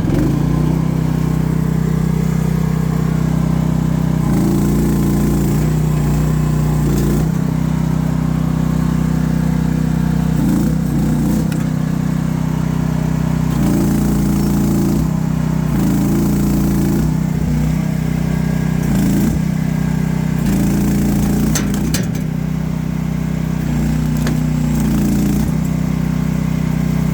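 AGT H12R mini excavator's engine running steadily, with its note rising and loading up in about six short spells of one to three seconds each as the hydraulic controls are worked one at a time in jerky movements, lifting a branch. A few sharp clicks come about two-thirds of the way through.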